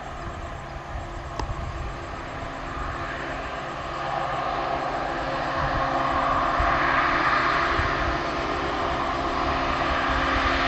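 EMD WDP-4D diesel-electric locomotive's two-stroke diesel engine running as it approaches with a passenger train, growing steadily louder from about four seconds in.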